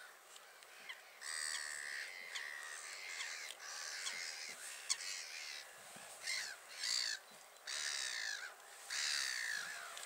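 Gulls calling, many harsh overlapping calls, some falling in pitch.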